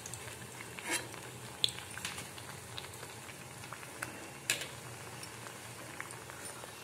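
Oil bubbling and sizzling steadily in a steel kadhai as lauki (bottle-gourd) vadas deep-fry, with a few sharp clicks now and then, the loudest about four and a half seconds in.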